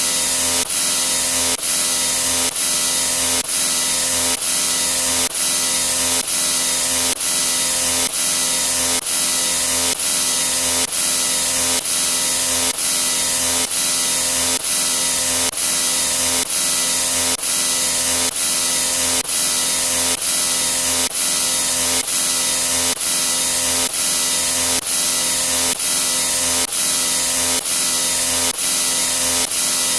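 Loud, harsh, hissing sound effect with a steady hum beneath it, cut by brief dips that repeat at an even pace, somewhat more than once a second.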